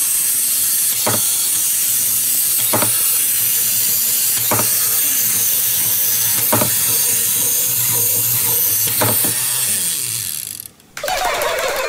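Clockwork of wind-up plastic toys whirring steadily, with a light knock about every one and a half to two seconds; it runs down and stops near the end.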